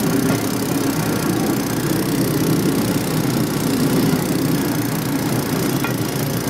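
Small engine of a motorized rail handcar running steadily as the handcar travels along the track.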